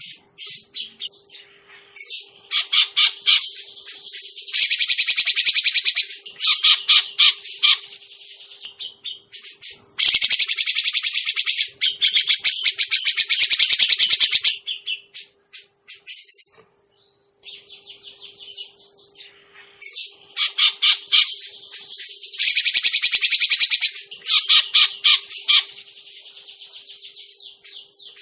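Cucak jenggot (grey-cheeked bulbul) calls played as a lure recording: repeated loud bursts of rapid, chattering high notes, each a few seconds long with short pauses between. A faint steady hum lies underneath.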